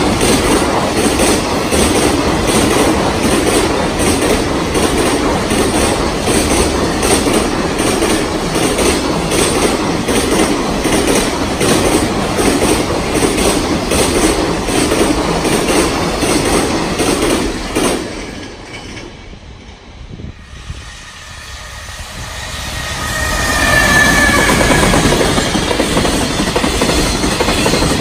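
Long JR Freight container train passing at speed, its wagon wheels clattering over rail joints in a steady rhythm. After about eighteen seconds the sound drops away, then a second container freight train rises in, with a brief high wheel squeal.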